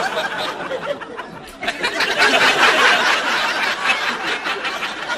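Studio audience laughing, the laughter swelling about two seconds in and then fading.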